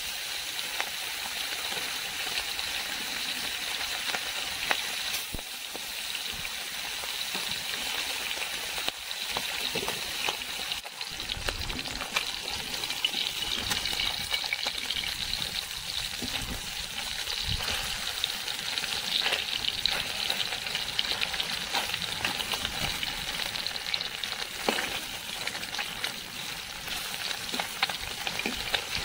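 Small whole fish frying in hot oil in a metal kadai: a steady sizzle and crackle. Now and then a perforated metal spatula clicks and scrapes against the pan as the fish are turned.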